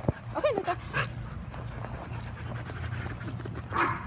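Young German Shepherd Dog panting close by, with a short pitched sound that rises and falls about half a second in.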